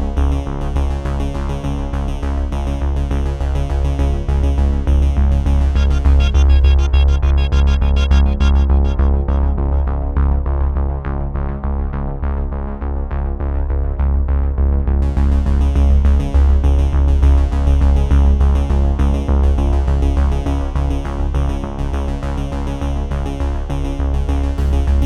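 Electronic background music with synthesizer and a heavy bass line. The high end is filtered out for several seconds in the middle and then comes back.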